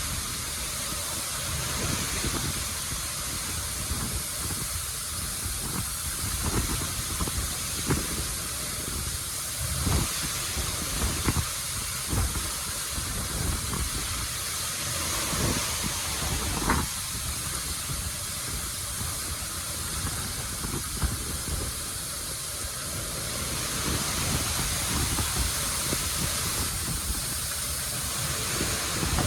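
Waterfall: a steady rushing hiss of falling water, with an irregular low rumble underneath.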